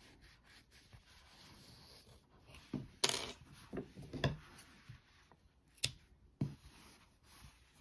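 Hands handling a crocheted toy over a wooden table: soft rustling of yarn being pulled through the stitches, then about six short, sharp clicks and knocks of small objects on the tabletop from about three seconds in.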